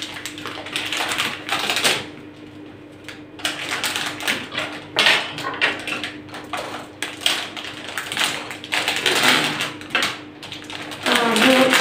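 Plastic packaging crinkling and crackling in irregular bursts, with small taps, as frozen puff pastry sheets are unwrapped and peeled apart. A steady low hum runs underneath.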